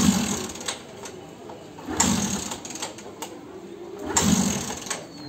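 Motorcycle being kick-started: three kicks about two seconds apart, each turning the engine over briefly without it catching. The bike is hard to start.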